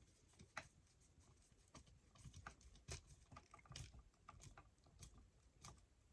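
Faint, irregular small clicks and scrapes of a bare copper ground wire being fitted and screwed down under the green ground screw of a wall outlet.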